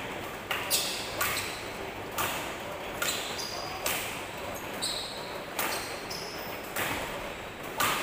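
Badminton racket striking shuttlecocks again and again, a sharp smack about once a second, each with a short echo in the hall. Brief high squeaks, typical of court shoes on the floor, come between hits midway through.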